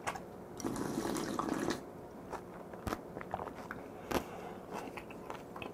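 A person drinking the cold broth of squid mulhoe straight from a glass bowl: one longer slurp about a second in, then scattered small mouth clicks and gulps.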